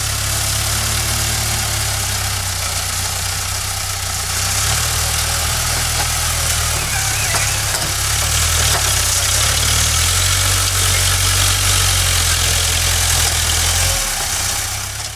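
JCB backhoe loader's diesel engine running as the machine pushes soil with its front loader bucket, the engine note stepping up and down several times as it works.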